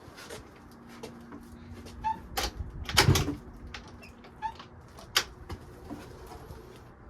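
Clicks and knocks from working at the stuck seat of a SYM DD Sport 50cc moped, with one louder clunk about three seconds in; the seat is still jammed shut.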